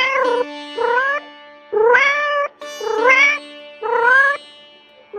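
A cat meowing five times, about once a second, each meow rising in pitch, over background music with steady held tones.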